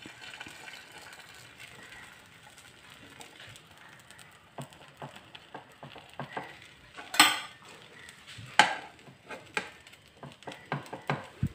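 Eggs and bread frying in ghee in a nonstick pan, a faint steady sizzle. Over it come scattered clicks and scrapes of a steel spatula against the pan, loudest about seven and eight and a half seconds in.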